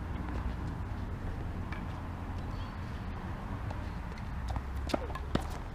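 Tennis ball being struck by a racket and bouncing on a hard court: a few sharp pops near the end, over a steady low rumble.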